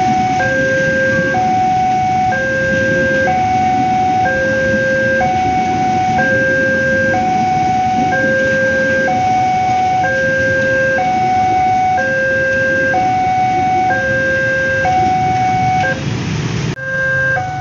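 Railway level-crossing warning alarm sounding an electronic two-tone chime, its two notes alternating steadily, each about a second long. Under it runs the low rumble of a passing train, which drops away abruptly near the end.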